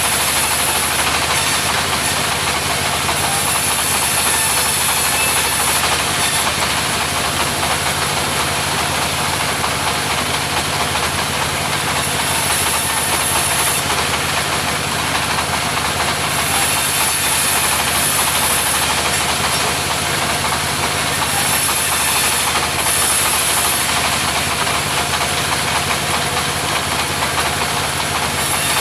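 Mobile sawmill running steadily, its engine and saw blade making a loud continuous noise, with a high hiss that comes and goes every few seconds.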